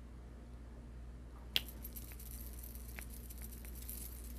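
Small items being handled by hand: one sharp click about one and a half seconds in, then a lighter click and a few faint ticks with a soft rustle, over a low steady hum.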